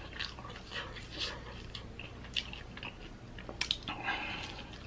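Close-up eating sounds of sauce-covered chicken wings: wet chewing and lip smacks, with a few sharper clicks about three and a half seconds in as a wing is bitten into.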